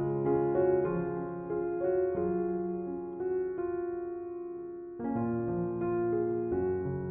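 Background piano music: gentle, slow chords and melody notes over a soft bass line.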